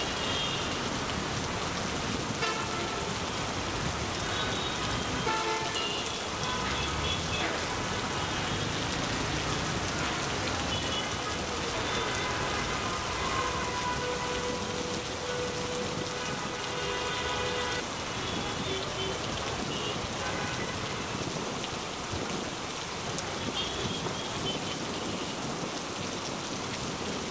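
Steady heavy rain falling on a street and on vehicles, with short horn toots from traffic here and there.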